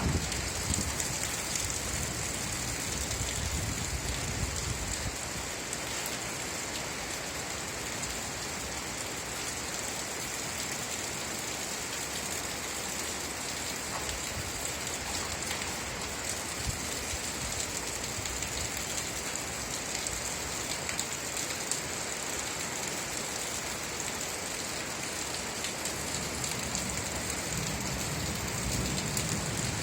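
Steady rain falling on a surface: an even hiss of many pattering drops. A low rumble dies away in the first second.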